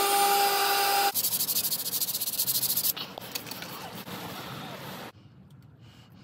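A small handheld power tool motor running steadily at a high pitch, cutting off about a second in. Then comes a couple of seconds of loud, rapid rasping strokes on wood and resin, growing quieter until it stops about five seconds in.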